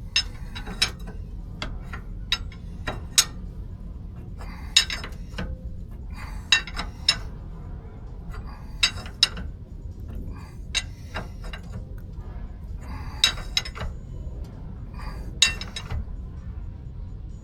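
Sharp metallic clinks and clicks at irregular intervals from hand tools running a nut onto the upper ball joint stud and tightening it, drawing the ball joint up into its sleeve to lock it. A low steady hum lies underneath.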